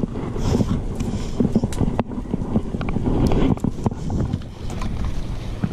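Someone climbing down through a tree: irregular knocks, scrapes and rustling of branches and leaves.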